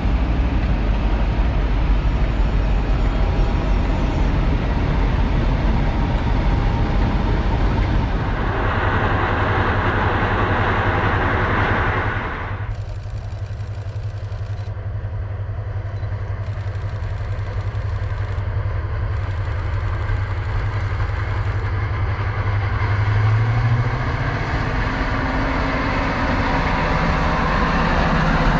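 Heritage diesel locomotive engine running steadily. A loud rushing noise over it cuts off sharply about twelve seconds in, leaving the low engine hum, whose note then rises a few seconds before the end.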